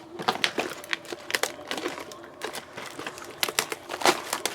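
Plastic wrapping on a box of football trading cards and its packs crinkling and being torn open: a quick, irregular series of sharp crackles.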